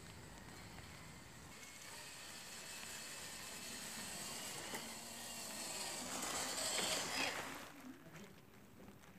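Radio-controlled scale crawler driving across a lawn, its motor and gears whining and its tyres pushing through the grass. The sound grows louder as it comes toward the microphone, is loudest as it passes close by about seven seconds in, then falls away.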